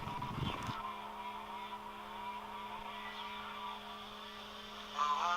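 A steady low hum with a few dull knocks in the first second; music comes in near the end.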